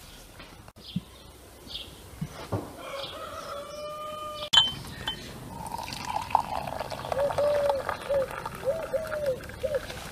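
A rooster crows once, a long call, in the first half. A sharp knock follows, the loudest sound. Then water runs from a samovar tap into glass tea glasses, giving a series of short pitched gurgles as they fill.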